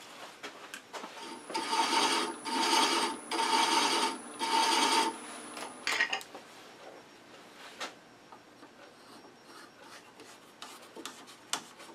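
Hand thread chaser cutting internal threads into a wooden box spinning on the lathe: four short scraping passes about a second apart, then only faint ticks.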